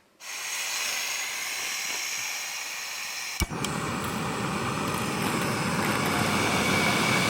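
Backpacking canister gas stove being lit: the valve opens with a steady hiss, a sharp igniter click about halfway through, then the burner catches and runs with a louder, steady roar.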